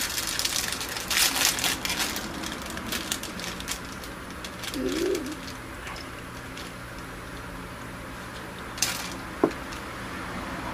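Crunching and chewing of a buttery shortbread cookie close to the microphone, loudest in the first two seconds. There is a short wavering low hum about halfway through and a sharp click near the end.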